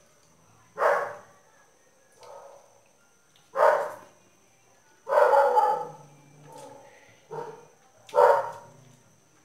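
A dog barking off-camera: a series of separate barks about a second apart, some loud and some softer, with one longer bark about halfway through.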